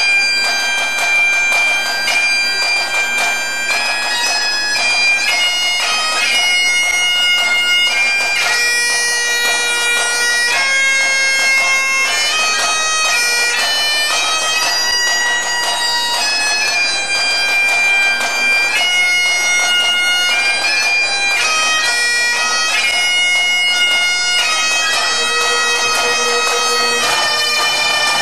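Pipe band playing: several Great Highland bagpipes sound a melody over steady drones, with snare and bass drums.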